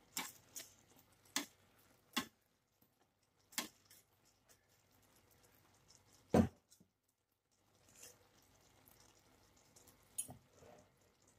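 Metal kitchen tongs clicking and tapping against a pan while turning battered fish pieces in sauce: a few scattered sharp clicks, then one heavier knock about six seconds in.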